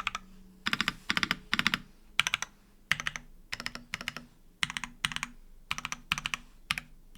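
Typing on a Merisi 500C/M mechanical keyboard with stock Gateron EF Grayish switches on an aluminium plate and GMK doubleshot ABS keycaps. Keystrokes come in quick runs of several clacks with short pauses between.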